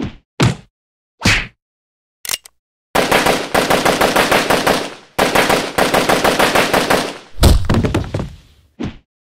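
Gunfire sound effects: three sharp hits, then two long bursts of rapid machine-gun fire, ending in one loud boom with a deep fading tail and a last sharp hit.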